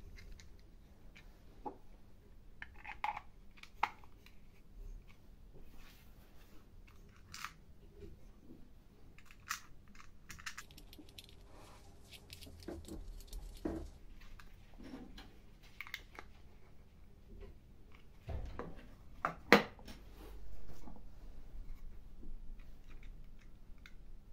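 Small parts being handled and fitted by hand: a clock movement, rubber washer and brass nut going into a 3D-printed base, giving scattered light clicks, taps and scrapes, the sharpest click about three-quarters of the way through.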